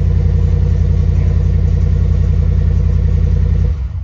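Ford F-150's engine idling just after a cold start, with a steady, even exhaust pulse. It is switched off near the end and the sound dies away quickly.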